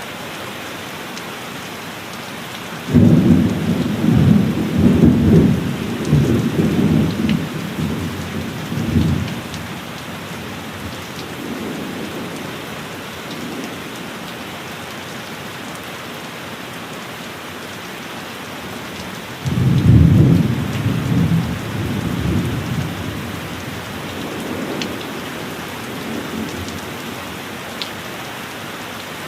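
Steady heavy rain hissing, with two rolls of thunder: one breaks a few seconds in and rumbles on for several seconds, and a second breaks about two-thirds of the way through and fades out slowly.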